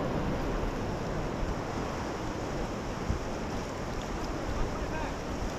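Rushing whitewater around an inflatable raft, a steady rush with a low rumble, with wind buffeting the camera microphone.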